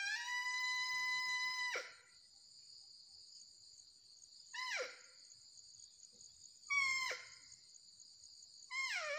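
Handmade mouth-blown deer caller, built to call both barking deer and sambar deer, sounding a series of bleating calls. The first is long, holding its pitch, then sliding sharply down. Three shorter calls follow, each falling in pitch, over a steady buzz of crickets and insects.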